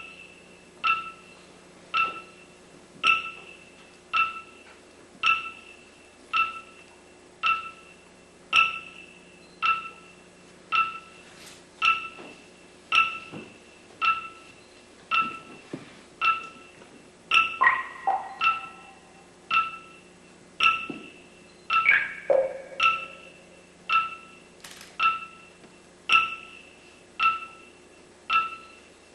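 Sparse percussive music: one high struck note repeating steadily about once a second, each fading quickly, with a few lower notes joining in twice in the second half.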